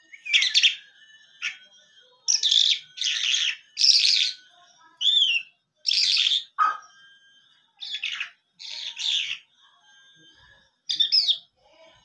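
A caged lark, the 'lunda jal' of the title, singing: short harsh, scratchy notes in quick phrases, with a few clear whistled notes between them.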